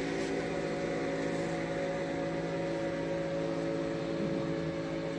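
Steady machine drone with several held tones, running evenly without change.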